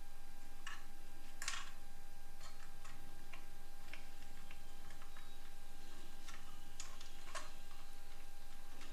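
Light, irregular clicks and taps of small hard objects being handled, over a faint steady hum.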